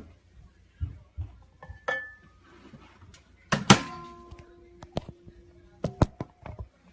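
Microwave oven being handled in a small room: a series of knocks and clicks, the loudest about two thirds of the way through, with short steady tones ringing on after some of them.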